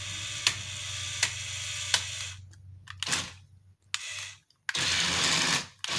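Small electric drive motors of a 1:35-scale remote-control Cat D7E bulldozer whirring in short bursts as it is driven, with a few sharp clicks. There is a steady run for about the first two seconds, then stop-start bursts, and a louder, rougher burst near the end.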